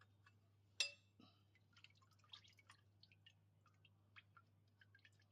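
A single sharp metallic clink with a brief ring about a second in, followed by faint scattered clicks and taps of small metal parts being handled; otherwise near silence.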